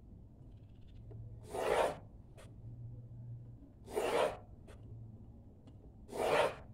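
Pencil lead scratching across drawing paper as it is drawn along a ruler to rule straight lines, three strokes of about half a second each, a couple of seconds apart.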